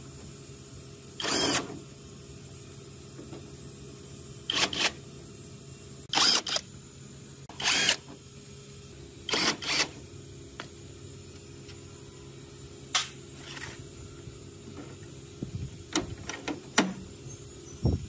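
Makita cordless impact driver running in about seven short bursts, each under half a second, backing screws out of an old air conditioner's plastic front panel. Near the end come a few light clicks and knocks as the loosened panel is handled and lifted off.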